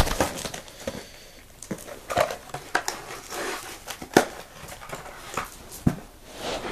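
Handling noise from picking up a small plastic device and its packaging: scattered clicks and light knocks with plastic rustling and crinkling between them.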